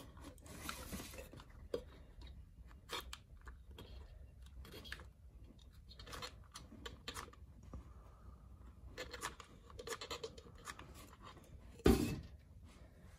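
Scattered small clicks and scratches of a hot glue gun being handled against the threaded neck of a stainless steel tumbler while the hole is plugged with glue, with one louder knock about twelve seconds in.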